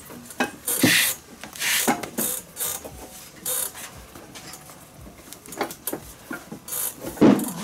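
Leather glove lace being drawn through the lacing holes of a Kubota Slugger infielder's glove: a run of short, irregular rasping pulls of leather sliding on leather, with a louder one just before the end.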